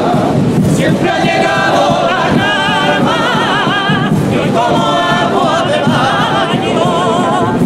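Cádiz carnival comparsa, a male chorus, singing loudly together in harmony, with long held notes that waver.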